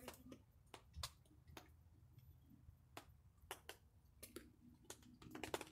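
Near silence broken by faint, irregular clicks and ticks, about a dozen of them, with a small cluster near the end.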